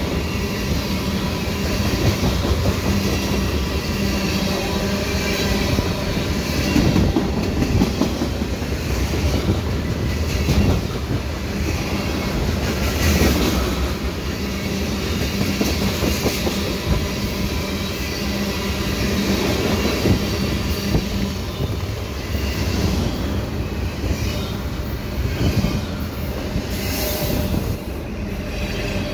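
Freight cars of a fast freight train rolling past close by: a steady loud rumble of steel wheels on rail, with rattling and scattered sharper clacks.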